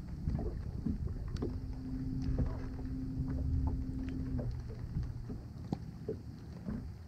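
Low rumble of wind and water lapping against a bass boat's hull, with scattered small clicks and a steady low hum from about one and a half to four and a half seconds in.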